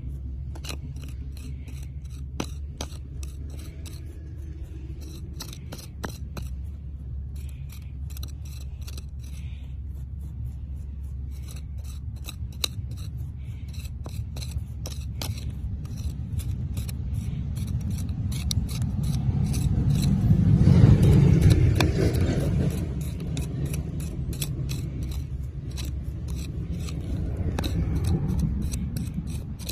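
A thin stick scraping and picking through loose, gritty soil, with many quick ticks of crumbling grains. A steady low rumble runs underneath and swells loudest about twenty seconds in, and again briefly near the end.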